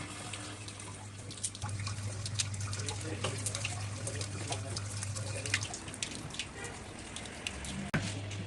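Water running from a tap and splashing in a kitchen sink, with scattered clicks and knocks, over a steady low hum.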